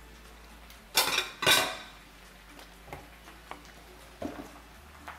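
A plate and utensils clattering into a kitchen sink: two loud clinks about a second in, half a second apart. A few light taps follow as a carton and a plastic tub are set down on the countertop.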